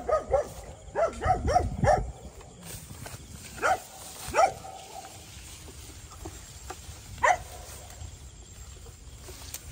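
A dog barking: a quick run of barks in the first two seconds, then single barks a few seconds apart.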